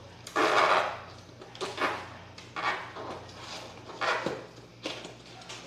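Hands handling a long cardboard air-rifle box and the plastic wrapping of the rifle inside: a loud rustling scrape about half a second in, then four or five shorter rustles roughly a second apart.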